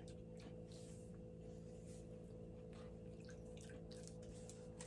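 Faint, irregular crunching from someone chewing a flaky chocolate wafer bar, over a steady low room hum.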